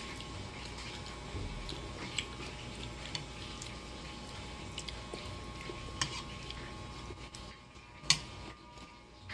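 A spoon clicking against a bowl of porridge in a few scattered light clinks, the sharpest about eight seconds in, over a faint steady hum.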